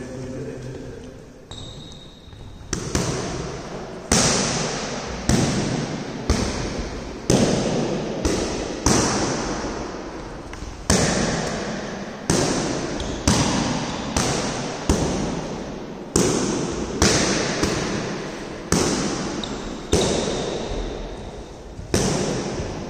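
Boxing punches landing on focus mitts: a string of about two dozen sharp smacks, starting about three seconds in and coming every half second to second and a half, each ringing on in the echo of a large sports hall.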